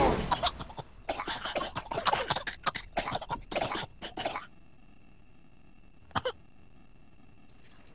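A fit of repeated coughing and throat clearing, dense and rapid for about four and a half seconds, of the kind caused by breathing traffic exhaust fumes. Then it goes quiet, with a faint steady high tone and a brief click about six seconds in.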